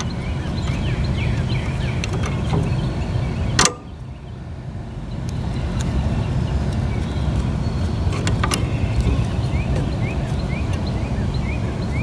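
Steady low rumble of background noise, with a few light metallic clicks as the pin is worked into the mower's shift lever linkage. The sharpest click comes about three and a half seconds in, after which the rumble dips for a couple of seconds.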